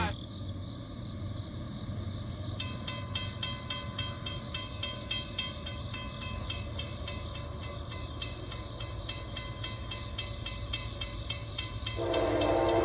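Low rumble of an approaching train, with a fast regular clicking starting about two and a half seconds in. About twelve seconds in, the locomotive's horn starts sounding loudly.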